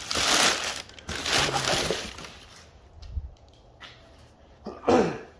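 Brown kraft packing paper crumpling and rustling as it is stuffed into a cardboard box, loudest in two bursts over the first two seconds. After that comes quieter handling with a few light knocks and a short swish near the end.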